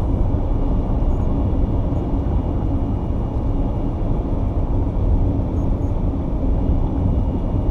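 Steady low rumble inside a vehicle's cabin, without changes or distinct events.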